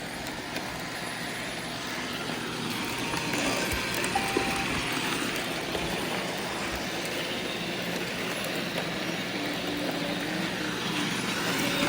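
Robot vacuum cleaners running with a steady whirring hum. The Bissell has something stuck in it, and its running does not sound good.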